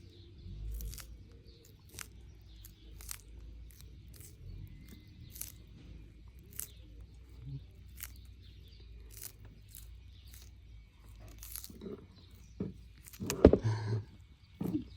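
A turtle eating, its beak biting and crunching food in sharp clicks about once a second, with a louder run of crunching bites near the end.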